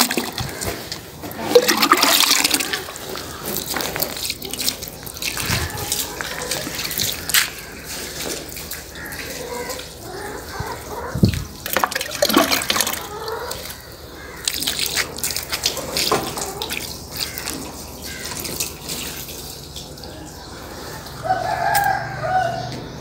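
Clean water being poured over a solar panel to rinse off detergent suds, splashing in irregular surges and running off the panel. A rooster crows near the end.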